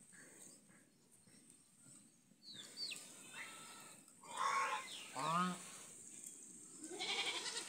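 Domestic white geese calling after a quiet start: thin high squeaks, then a loud honk and a quick, wavering bleat-like call that falls in pitch about five seconds in, with another call near the end.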